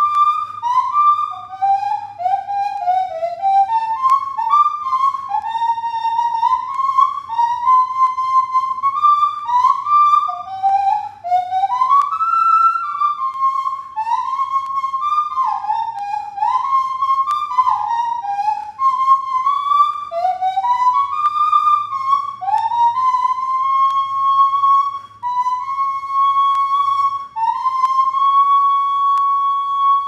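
Nose flute playing a melody solo, a pure whistle-like tone with notes sliding up and down into one another. It ends on a long held note near the end.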